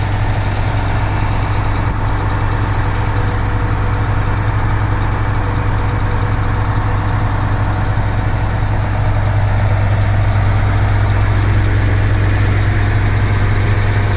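Truck-mounted concrete pump's diesel engine idling steadily with a deep hum, its boom raised while it waits for concrete; it gets slightly louder about nine seconds in.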